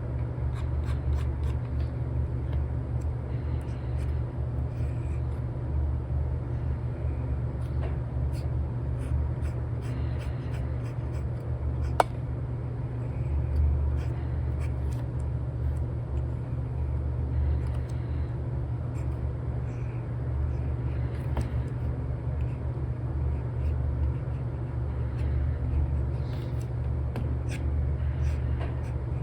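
Steady low rumble of a white-noise background track, with light scattered taps and strokes of a stylus nib on a tablet screen fitted with a paper-like film, and one sharper tap about twelve seconds in.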